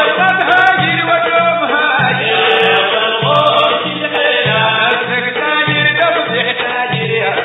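Sudanese Sufi madeeh: a group of men singing a religious chant together, backed by tar frame drums beating a steady rhythm about twice a second.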